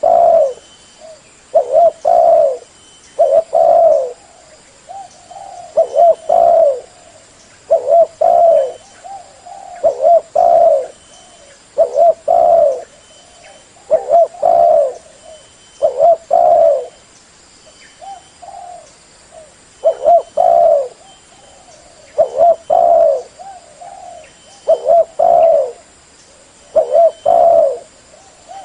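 Spotted dove (terkuku) cooing loudly over and over, a short phrase of a few coos about every two seconds.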